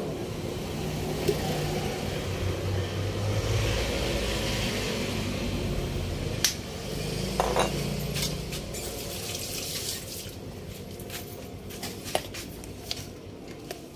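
Liquid running steadily with a water-like hiss that fades out after about ten seconds, with a sharp click about six and a half seconds in.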